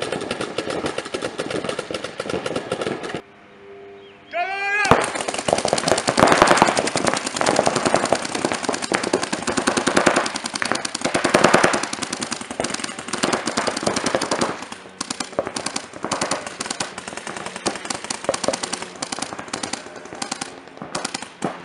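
Paintball markers firing in rapid strings of shots, several players at once, with a brief lull about four seconds in. The firing is densest in the middle and thins to sparser strings later.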